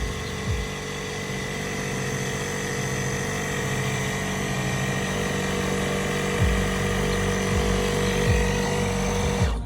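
Portable electric tyre inflator running steadily as it pumps up a scooter tyre, then cutting off abruptly near the end.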